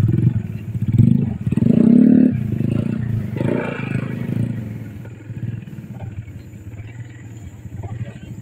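Small motorcycle engine revving in surges as it is ridden and paddled along a muddy track, then dropping to a quieter steady run as the bike pulls away after about three seconds.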